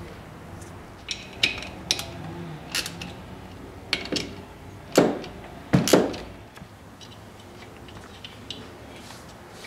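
Metal parts of a Warn 9.5XP winch being handled on a workbench: a scattered series of clinks and knocks, the loudest two about five and six seconds in.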